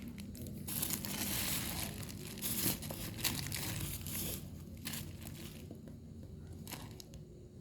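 Packaging being handled and rustled, with a few sharp clicks. The rustling is loudest in the first half and dies down over the last couple of seconds.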